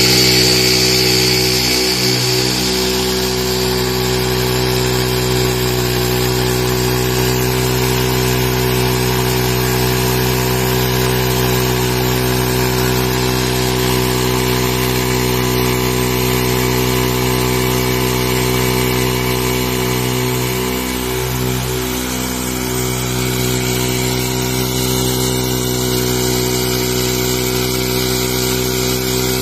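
Honda CD70 motorcycle's single-cylinder four-stroke engine running steadily at constant speed, belt-driving a tubewell pump, with water gushing from the outlet pipe into a concrete tank.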